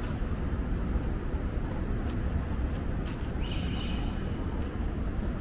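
City street ambience: a steady low rumble of traffic with scattered sharp clicks, and a brief high steady tone about three and a half seconds in.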